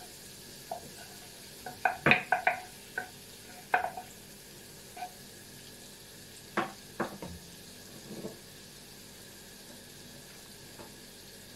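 Butter melting with a quiet sizzle in a nonstick pot, while a spatula taps and scrapes against the pan several times, most clearly about two seconds in and again around six and a half to seven seconds.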